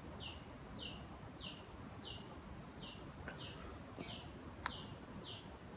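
A bird calling faintly: short, high, slightly falling chirps repeated at an even pace, about three every two seconds. A thin steady high whine comes in about a second in, and there is a single sharp click near the end.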